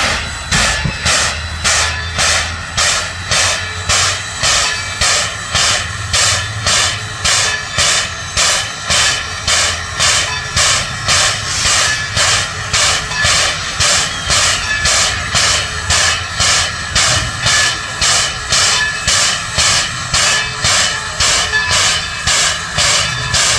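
Standing steam locomotive Baldwin No. 26 working its air pump: an even, rhythmic chuffing with a hiss, about three beats every two seconds, over a low steady hum.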